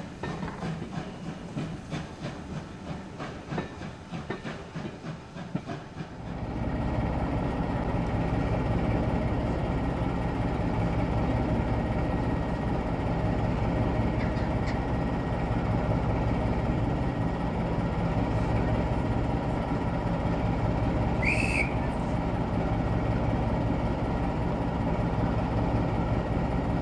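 Steam train running: a fast rhythmic clatter for about the first six seconds, then abruptly a louder, steady rumble with a low hum. A single short high-pitched peep about three-quarters of the way through.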